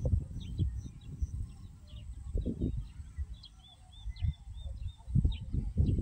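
Small birds chirping with many short, high notes, densest in the middle, over low rumbling noise on the microphone that swells near the middle and again near the end.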